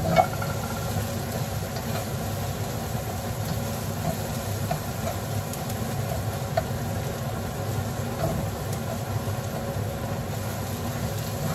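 Garlic and ginger being stirred in hot oil in a non-stick pot on a gas stove: a steady low rumble under light, scattered taps of the utensil against the pot, with two louder knocks right at the start.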